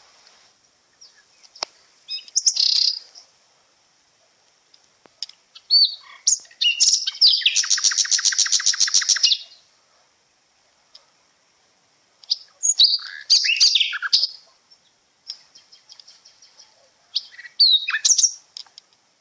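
Birds calling in short bursts of chirps and whistles, with one fast trill of rapidly repeated notes lasting about two seconds near the middle, over a faint steady high-pitched whine.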